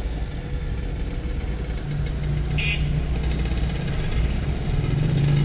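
Car engine running at low speed, heard from inside the cabin as a low steady hum that grows a little louder toward the end. A short high beep sounds about two and a half seconds in.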